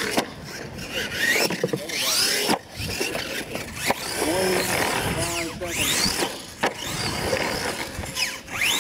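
R/C monster truck's electric motor whining up and down in pitch as it is revved hard, again and again, with knocks as the truck lands off a jump and tumbles on the dirt.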